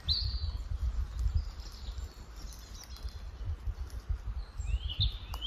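Woodland birds singing: short chirps, one just at the start and a cluster of rising and falling notes near the end. Underneath runs a low, uneven rumble, which is the loudest part.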